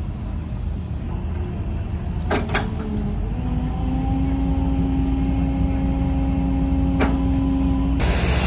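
Diesel engine of a heavy tracked machine running with a steady low rumble, with a steady whine held for several seconds and a few sharp clicks. Near the end a louder hiss comes in suddenly.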